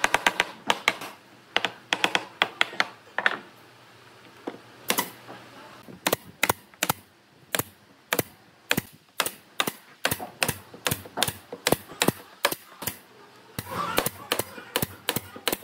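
Pneumatic nail gun firing nails into wooden planks: a run of sharp clacks, about two a second, with a short pause early on.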